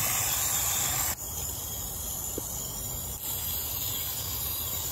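Garden-hose spray nozzle showering water onto the potting soil of herb containers: a steady hiss of spray that gets quieter after about a second.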